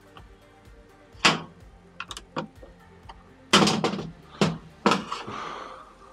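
Sharp knocks and clatter of hand tools being handled against a washer's sheet-metal cabinet, with one loud knock about a second in and a burst of clatter from about three and a half seconds in, over faint background music.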